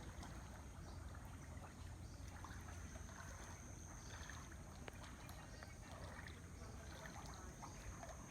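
Faint, steady rush of a flood-swollen river's water.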